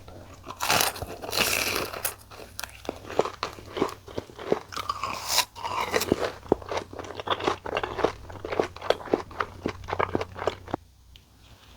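Close-miked biting and chewing of boneless fried chicken thigh pieces in spicy seasoned sauce. A loud crunching bite comes about half a second in and another near five seconds. Between and after them runs a quick string of crunchy chews, which stops shortly before the end.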